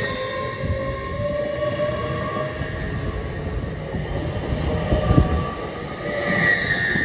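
Passenger train moving through the station: a steady rumble of wheels on the rails, with a whine that climbs in pitch over the first couple of seconds and a higher whine near the end.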